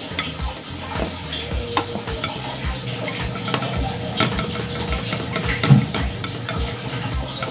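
Wet, soaked glutinous rice being scooped with a metal mesh strainer and tipped into a banana-leaf-lined aluminium steamer: a steady crackle and patter of grains with small clicks and taps of the strainer. There is one louder bump about two-thirds of the way through.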